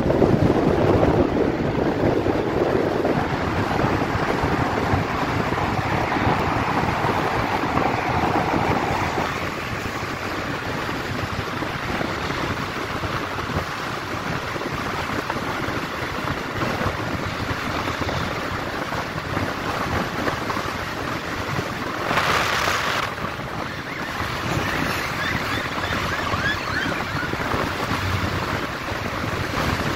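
Wind rushing over the microphone of a motorcycle moving at highway speed, a steady noisy rush that buries the engine. About three-quarters of the way through, a louder hiss lasts about a second.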